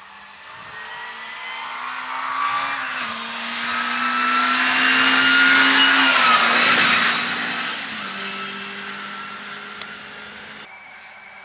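Rally hatchback approaching under hard acceleration, changing up a gear about three seconds in. It passes close by about six seconds in, with a rush of tyre and wind noise, and its engine note drops as it goes past. It then pulls away and fades.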